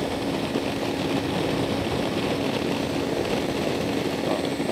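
Kawasaki Versys-X 300's parallel-twin engine running steadily at highway cruising speed, a constant engine note under even wind and road noise.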